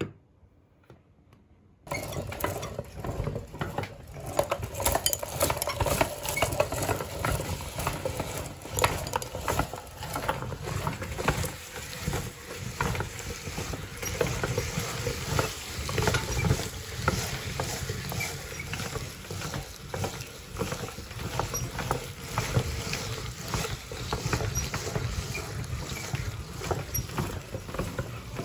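Hand-cranked metal meat grinder crushing frozen ice pops: a dense, continuous crunching and crackling full of fine clicks as the ice is forced through the auger and plate. It starts suddenly about two seconds in.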